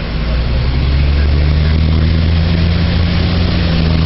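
Nova Bus LFS city bus engine running with a steady low hum, growing a little louder in the first second and then holding steady in pitch.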